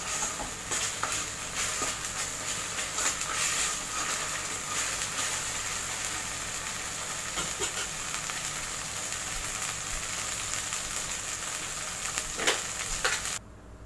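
Ground onion paste with ginger-garlic paste sizzling in hot oil in a steel pan, with many small crackling pops: it is frying until its raw smell is gone. The sound cuts off suddenly near the end.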